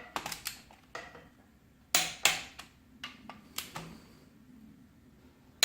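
Torque wrench working the connecting-rod bolts of an LQ4 6.0 V8 to 53 ft-lb: a run of sharp, irregular metallic clicks and knocks, the loudest pair about two seconds in.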